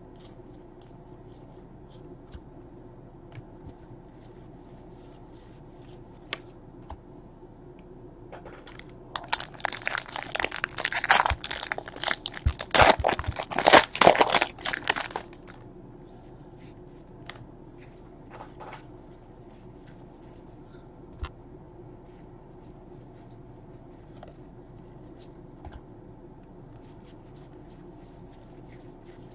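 A foil Panini Score football card pack wrapper torn open and crinkled for several seconds in the middle, the loudest sound. Before and after, soft clicks and flicks of the cardboard cards being handled and sorted.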